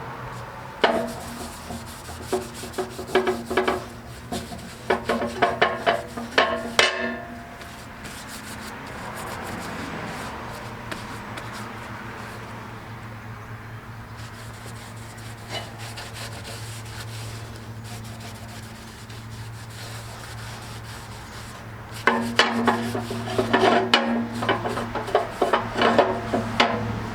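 Two bouts of quick, rough scraping and scrubbing strokes, the first for about six seconds and the second starting near the end, over a steady low hum.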